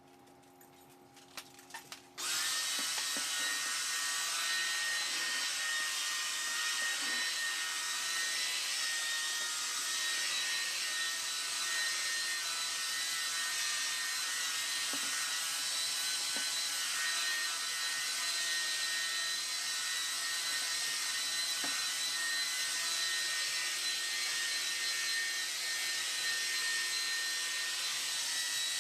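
Bissell CrossWave Pet Pro wet-dry floor cleaner switching on about two seconds in after a few light clicks, then running steadily with a high motor whine over a loud hiss.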